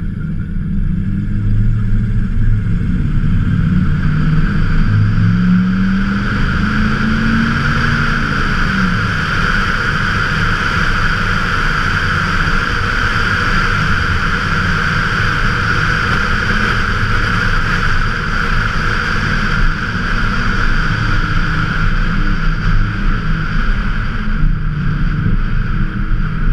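1995 Ford F-150's 302 (5.0 L) V8 driving with its exhaust cutout closed, in quiet mode, so the exhaust runs through a second catalytic converter and a Cherry Bomb Extreme muffler. Engine pitch rises about five seconds in as the truck picks up speed, then settles under a steady rushing of wind and road noise while cruising.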